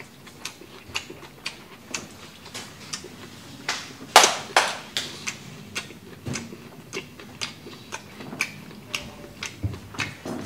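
A man chewing food close to the microphone: wet mouth smacks and clicks, about two or three a second, with a louder one about four seconds in.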